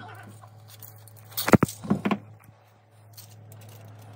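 Aluminium foil crinkling under hands handling seasoned fish fillets, with a short burst of loud crackles about a second and a half in. A steady low hum runs underneath.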